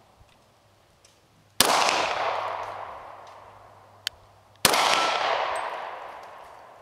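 Two pistol shots from a Springfield XD-40 in .40 S&W, about three seconds apart. Each is followed by a long echo that fades over about two seconds.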